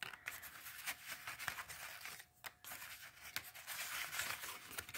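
Loose painted paper scraps rustling and sliding as a hand shuffles through the pile, with a short break a little over two seconds in.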